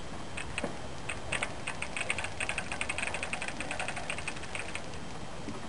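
Fishing reel clicking while a hooked carp is being played: a rapid run of ticks, about eight a second, lasting about four seconds.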